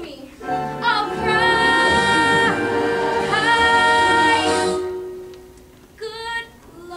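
Musical-theatre singing: a woman's voice holds two long notes over backing music, and the number fades out about five seconds in. A short burst of voice follows about a second later.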